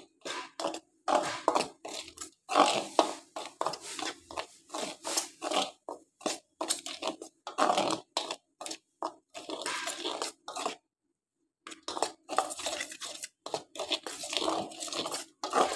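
A spoon stirring a dry mix of gram flour, rice flour, corn flour and spices in a stainless steel bowl: quick, irregular short strokes of the spoon through the flour and against the bowl, with a pause of about a second some eleven seconds in.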